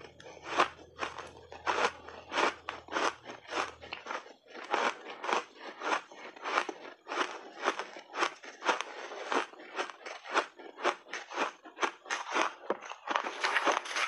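Teeth biting and chewing crunchy refrozen peach-berry blended shaved ice, a quick run of crisp crunches about two or three a second. A hissing, rustling noise rises near the end.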